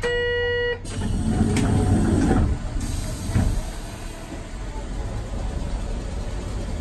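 A departure buzzer sounds for under a second on an Okayama Electric Tramway tram, then a clatter and low rumble as the doors close and the tram moves off, settling into a steady low running rumble.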